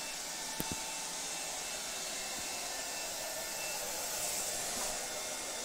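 Cooling fans of cryptocurrency mining computers running while they mine: graphics-card fans, CPU coolers and a server power supply making a steady whoosh with a faint thin whine on top. A couple of faint knocks come a little over half a second in.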